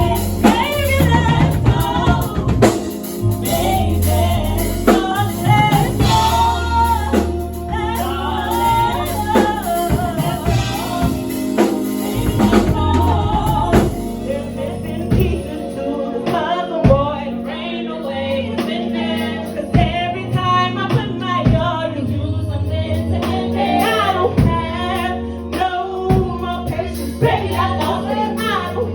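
A song performed with singing over a drum kit and bass, with steady drum hits throughout.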